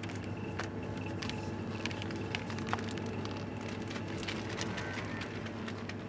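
Wrapped loaf of bread being handled, its wrapper crinkling with many short sharp crackles, over a steady low hum from the shop's open chiller cabinets.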